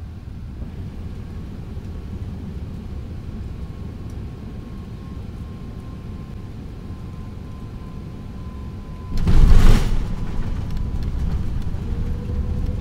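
Airbus A380 heard from inside the cabin on final approach: a steady low rumble with a faint steady engine whine. About nine seconds in comes a loud, brief jolt as the main gear touches down on the runway, and the rumble stays louder on the rollout after it.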